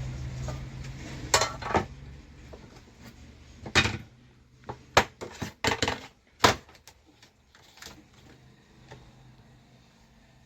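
Scattered sharp clicks, clinks and knocks of hand tools and parts being handled, loudest around the middle. A low steady hum runs during the first few seconds, then fades out.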